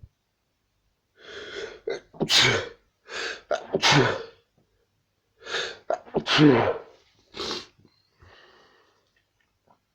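A person sneezing three times in quick succession, each sneeze led by a gasping in-breath. A shorter, sharper sniff follows near the end.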